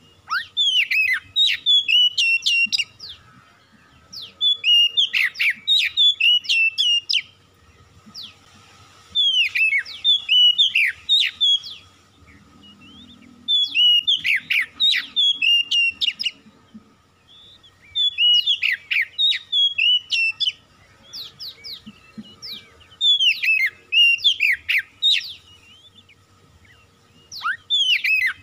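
Oriental magpie-robin singing: loud, varied whistled phrases with quick rising and falling notes, each two to three seconds long and broken by short pauses, about seven phrases in all.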